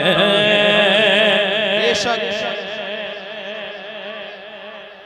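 A man's singing voice holding a long, wavering note at the end of a recited naat line, fading slowly away with echo over about four seconds. There is a brief click about two seconds in.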